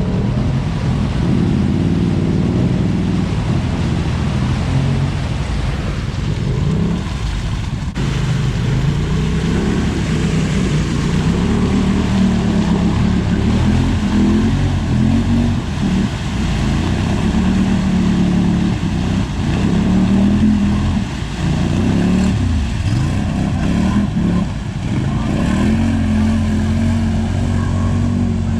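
Off-road vehicle engine running under load, its pitch rising and falling over and over as the throttle is worked, over a steady rushing noise.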